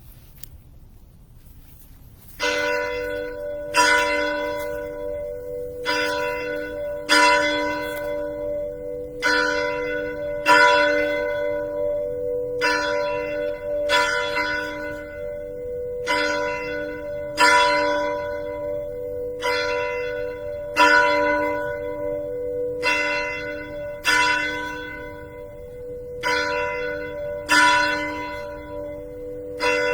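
A church bell tolling, struck about once a second from a couple of seconds in, each stroke's ring carrying on under the next. It is a memorial toll, one stroke for every 10,000 American lives lost to COVID-19.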